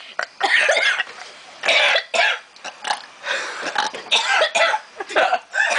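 Repeated loud, rough bursts from the throat, burping and coughing, about five of them roughly a second apart.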